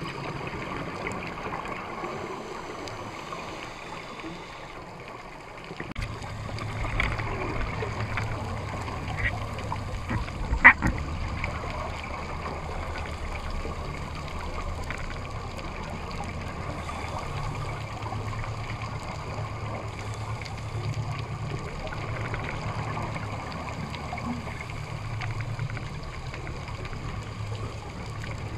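Muffled underwater sound through a camera's waterproof housing: a steady low rumble with bubbling from scuba divers' exhaled air, growing louder about six seconds in, with a single sharp knock near the middle.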